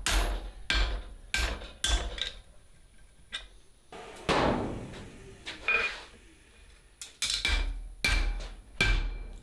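Hand hammer blows on the end of a hot steel sucker-rod bar stood on the anvil, upsetting it to a shoulder. Four quick blows come at the start, then a pause broken by a longer, duller noise and a single blow, then another run of blows near the end. Some blows leave a short metallic ring.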